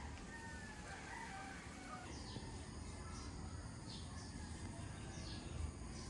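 Morning birdsong: a distant rooster crowing in the first second or so, then small birds giving a few high, quickly falling chirps, over a faint steady background hush.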